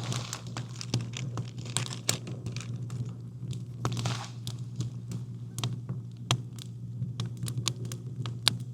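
Wood campfire crackling, with irregular sharp snaps and a few louder pops, over a steady low hum.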